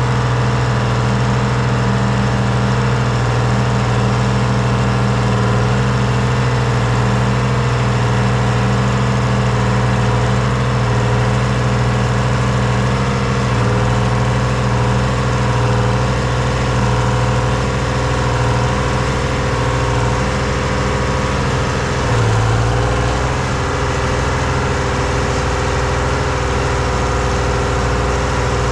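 The diesel engine of a 1978 Hein-Werner excavator running steadily, with a brief change in its note about three-quarters of the way through.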